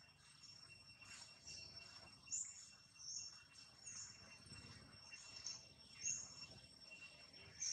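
Faint outdoor ambience: a steady, high insect drone with short, high bird chirps repeating roughly once a second.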